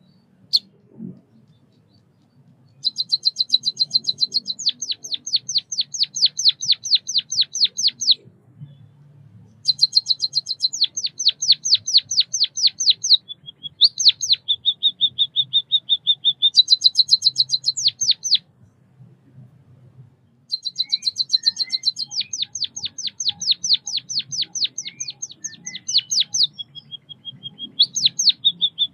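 White-headed munia singing: four bouts of high chirps repeated quickly, about four a second, separated by short pauses, some bouts running into a steady high trill.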